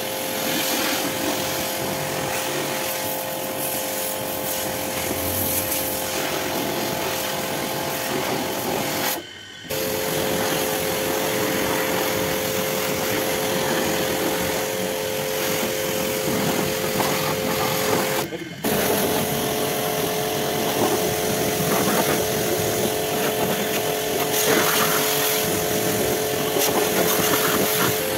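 Small electric pressure washer running: a steady motor whine over the hiss of its water jet striking car bodywork. The sound breaks off briefly twice, about a third and two thirds of the way through.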